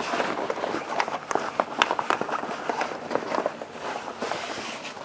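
Rummaging through a bag: irregular rustling with many small clicks and knocks as objects inside are moved about.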